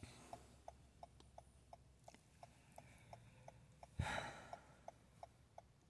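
Toyota Camry's hazard flasher ticking steadily, about three clicks a second, in a quiet cabin. About four seconds in, a brief rustle with a low thump of someone moving.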